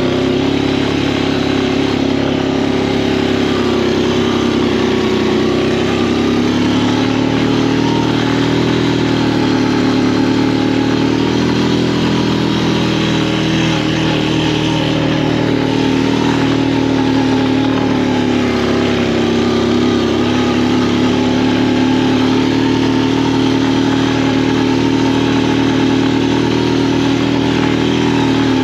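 An engine running steadily at a fairly even speed, its pitch wavering slightly.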